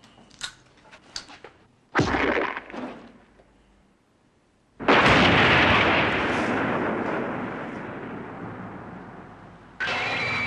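Film sound effects: a few sharp clicks, a sudden blast about two seconds in, then a bigger explosion a little before the middle that slowly dies away over several seconds. Another sudden hit comes near the end.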